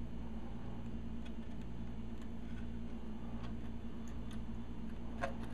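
Faint, irregular ticks and crackles of flux and solder as a soldering iron heats copper desoldering wick on a circuit-board pad, the loudest tick about five seconds in, over a steady low hum.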